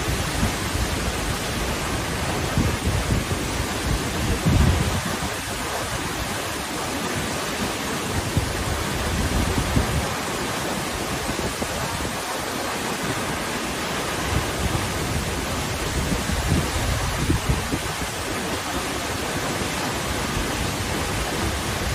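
A large waterfall crashing down a cliff: a steady rushing noise with uneven low rumbles swelling and fading.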